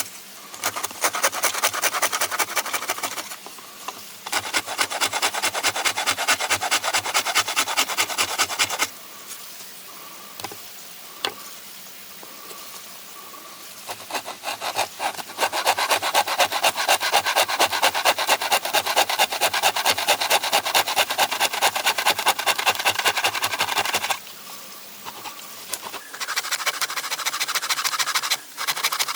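Wood being abraded by hand, with rapid back-and-forth rubbing strokes of a rasp or sandpaper. It comes in several spells, broken by short pauses in which a few light knocks are heard.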